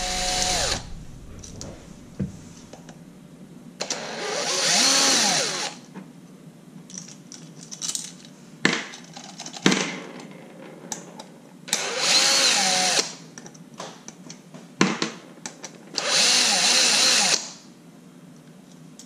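Small electric driver running in four short bursts, each about one to two seconds long, its motor speeding up and slowing down, with light clicks of handling between, as it backs out screws.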